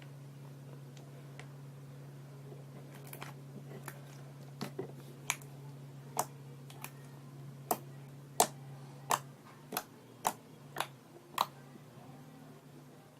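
Slime being pressed and worked by hand, giving about a dozen sharp clicking pops at irregular intervals as trapped air bursts.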